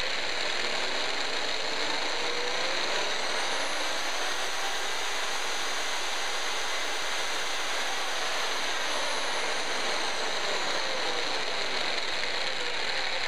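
Double-auger electric mortar mixer running with no load, its twin mixing paddles spinning free in the air: a steady motor and gearbox whine that rises in pitch as it speeds up, holds, then falls back as it slows.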